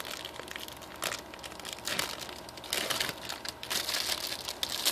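Plastic packaging crinkling and rustling as it is handled and opened, in irregular crackles that grow busier in the second half.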